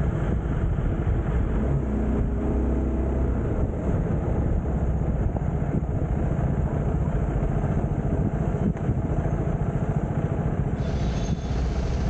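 TVS Apache RR 310 motorcycle on the move: its single-cylinder engine running under a steady, heavy rumble of wind and road noise.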